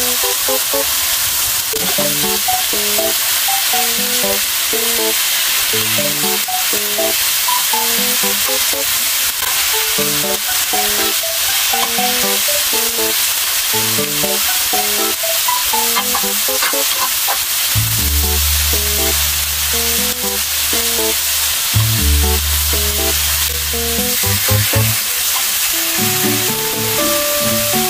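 Thin-sliced pork belly sizzling steadily on a grill pan, with tongs moving and turning the slices. Light background music plays under it.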